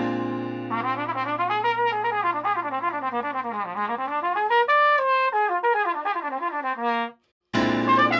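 Trumpet playing quick jazz runs up and down, first a C major pentatonic with flat seventh and then a C Lydian dominant pattern, over a sustained backing chord. Both stop together about seven seconds in and start again half a second later with the new run.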